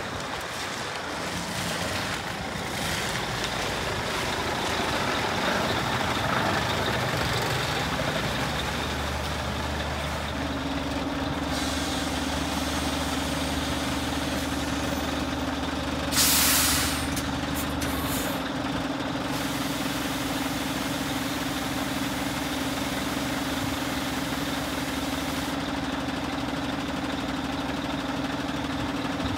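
Scania G440 hooklift truck's 13-litre inline-six diesel engine running steadily as the truck moves and then stands idling, with one loud hiss of air from the air brakes about halfway through.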